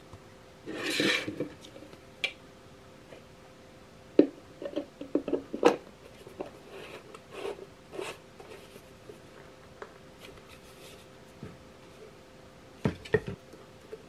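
Plastic parts of a Kärcher spray bottle and wiper being handled and put together: a rub about a second in as the dip tube goes into the bottle, then a run of sharp plastic clicks and knocks as the trigger head is screwed onto the bottle, and two more knocks near the end as the assembled unit is set down. A faint steady hum underneath.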